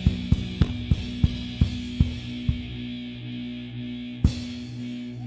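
Live punk rock band ending a song: drum hits that slow down, spreading further apart over the first two and a half seconds, then one last loud hit about four seconds in, over the steady ring of guitar and bass amplifiers.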